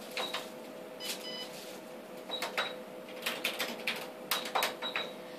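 Keys and buttons on an ultrasound machine's console clicking in irregular runs as a label is typed onto the scan, thickest in the second half. A steady electrical hum runs underneath, and a brief soft tone sounds about a second in.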